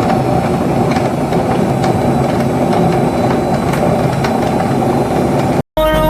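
Washing machine running, a steady mechanical hum with light rattling, cut off suddenly near the end.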